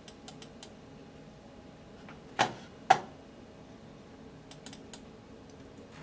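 Clicks from a computer mouse and keyboard: a few light clicks, then two louder sharp clicks about half a second apart around two and a half seconds in, and a few faint clicks near the end.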